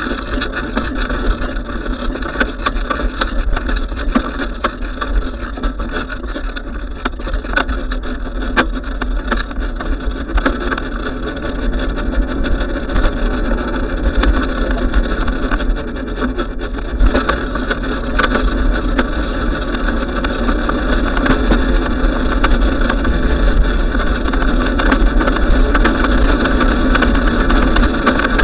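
Bicycle riding noise picked up by a camera on the bike: a steady rumble of tyres on concrete and asphalt, with frequent small clicks and rattles.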